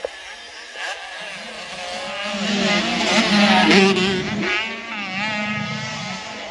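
Motocross bike engines running and revving on the track, their pitch rising and falling, loudest about halfway through.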